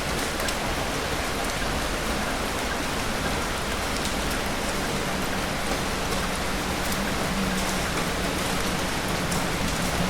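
Steady rain falling: an even hiss with scattered drops pattering.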